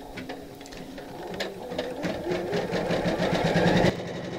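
Janome Memory Craft 500E embroidery machine running, its needle stitching a border around the design on felt at a fast, even rhythm. It grows louder over the first few seconds and drops abruptly to a quieter level near the end.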